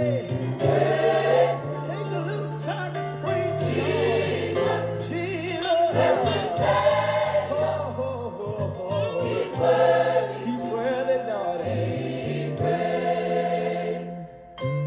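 Recorded gospel choir singing with instrumental accompaniment over long held bass notes; the music dips briefly just before the end.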